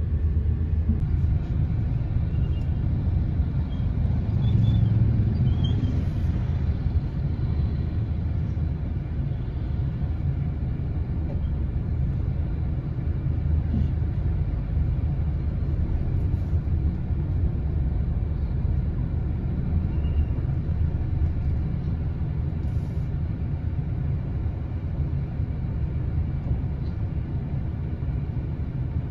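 Steady low rumble of a moving road vehicle: engine and tyre noise.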